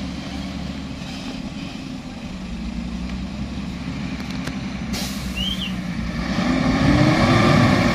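Euro 4 Hino dump truck's diesel engine running at low speed on a dirt road, growing louder from about six seconds in as the truck approaches. A short sharp click about five seconds in.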